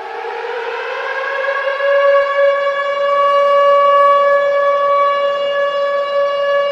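Lincoln Stars hockey goal horn sounding one long, loud blast. Its pitch climbs slightly as it comes up to full tone over the first second or two, then holds steady.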